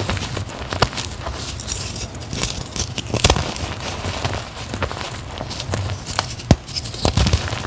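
Dyed, reformed gym chalk squeezed and crumbled by hand: a steady soft crunching of powder and small lumps, broken by sharp crackly snaps as pressed chunks give way, a few louder ones about 1, 3 and 6.5 seconds in.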